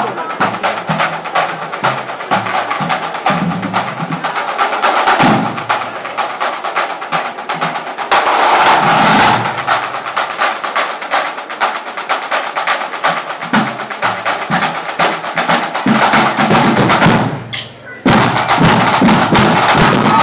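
A drumline of snare drums with a bass drum playing a drum fanfare, with fast rolls and rapid strokes. The drums drop out for a moment near the end, then come back in loud.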